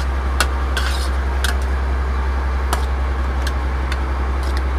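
A metal slotted spoon clinking and scraping against an aluminium pot as cooked rice is scooped out: several light, separate clinks. Under them runs the steady low hum of the fishing boat's engine.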